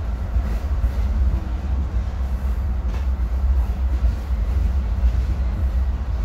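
Steady low rumble of a Metra commuter coach's wheels running on the rails, heard from inside the passenger car while the train moves, with an occasional faint click.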